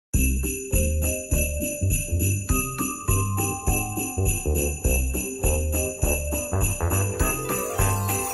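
Festive background music led by jingle bells shaking in a steady rhythm, over a bass beat of about two pulses a second and a stepping melody.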